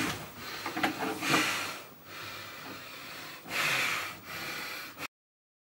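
A person breathing heavily under a cloth hood: a few loud, noisy breaths, the strongest near the end, before the sound cuts off suddenly about five seconds in.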